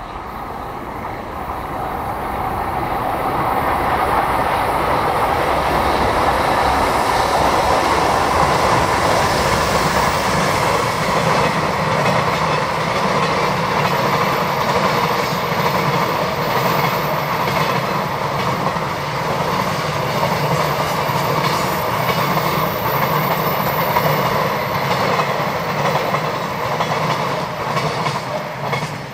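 Container freight train hauled by an EH500 electric locomotive running past, its long string of container flat wagons rolling by on the rails. The sound builds over the first few seconds, holds steady while the wagons pass, and eases near the end as the last wagon goes by.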